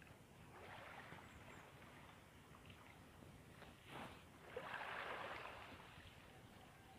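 Faint lapping of small waves at the water's edge, with a fishing cast about four and a half seconds in: a short swish and about a second of line rushing off the reel.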